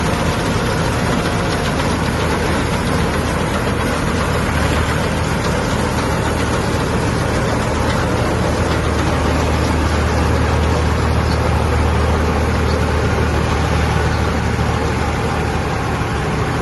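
Combine harvester running steadily: a loud, even mechanical noise over a low engine hum, which grows a little stronger about halfway through.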